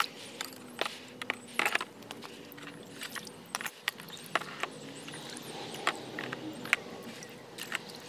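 Water splashing and sloshing in a plastic tub as a hatchet is scrubbed and swished by hand, with many irregular sharp clicks and knocks.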